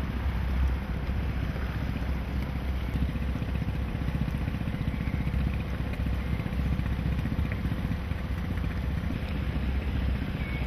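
Motorboat engine running steadily while the boat cruises, a constant low drone with wind on the microphone.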